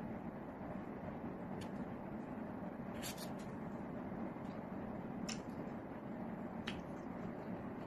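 Steady background noise, like room tone, with a few faint clicks scattered through it.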